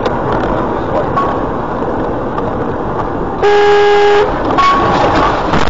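A car horn sounds once, for just under a second, about three and a half seconds in. Steady engine and road noise from the driving car runs under it.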